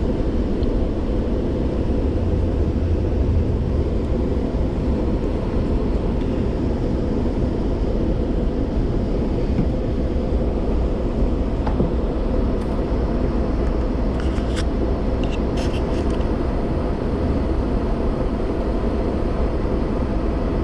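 Passenger train running at speed, a steady deep rumble as heard from inside the car, with a few brief, faint high-pitched sounds about two-thirds of the way through.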